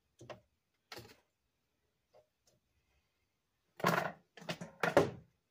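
A couple of light taps of a kitchen utensil against a sheet pan of roasted vegetables. About four seconds in, a quick run of louder clatters as utensils are handled and set down on the counter.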